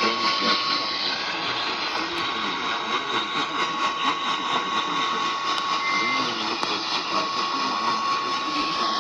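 A steady, single-pitch weather-radio alert tone, the NOAA Weather Radio warning alarm, held without a break over heavy radio static.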